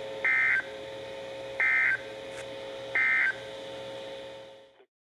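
NOAA Weather Radio end-of-message data burst: three short, identical bursts of warbling digital tones about 1.3 s apart, the SAME "NNNN" code that closes an emergency alert. A steady radio hum fills the gaps, and the audio cuts off near the end.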